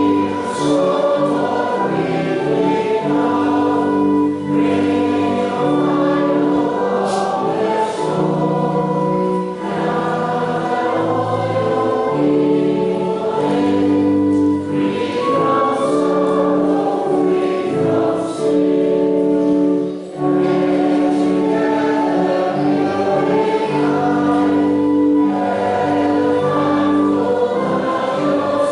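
A choir singing a hymn in sustained phrases, with short breaths between phrases.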